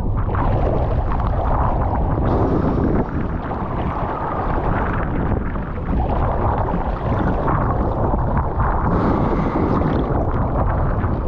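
Rough, wind-blown surf churning around a swimmer, with wind buffeting the microphone: a steady loud roar that eases slightly a few seconds in.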